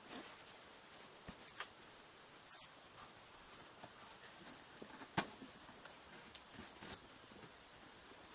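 Cardboard shipping box being handled and opened, faint: scattered light taps, scrapes and rustles, with a sharper knock about five seconds in and another near seven seconds.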